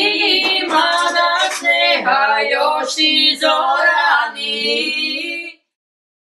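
Female voices singing a folk-style tune without accompaniment, in long held notes; the singing cuts off suddenly about five and a half seconds in.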